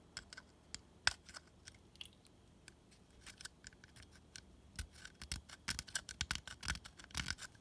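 Stanley knife blade shaving a small plastic lip off the back of a fridge control knob: a run of short scrapes and clicks, sparse at first and coming thick and fast in the last two or three seconds.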